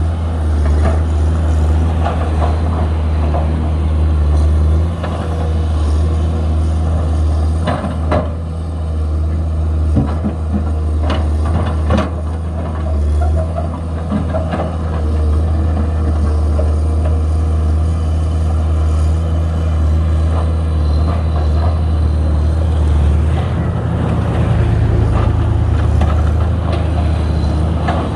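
Komatsu PC210LC hydraulic excavator's diesel engine running steadily under working load, with a handful of sharp knocks from the digging work near the middle. The engine note changes about five seconds before the end.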